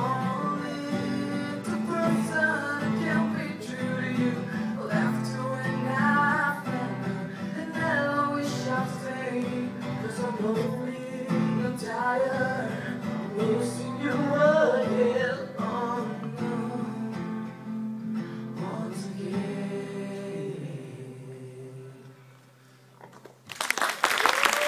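Acoustic guitar playing chords under a male voice singing; the voice stops and the last chords fade away, then applause breaks out about a second before the end.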